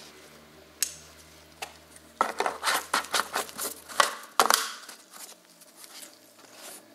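Gloved hands handling a plastic motor-oil bottle at its neck and cap. Irregular plastic clicks and knocks, a single one about a second in and a dense cluster through the middle.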